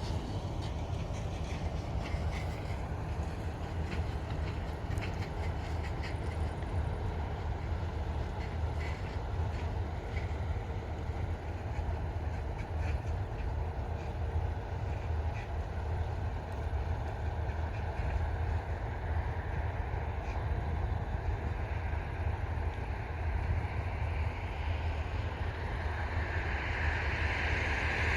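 Combine harvester running in the field: a steady low engine drone with the rattle of the threshing machinery, and scattered clicks in the first ten seconds. The noise grows louder and hissier near the end.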